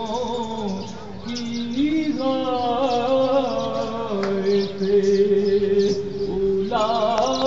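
A man's voice singing a slow melodic recitation in long held notes that waver and glide between pitches.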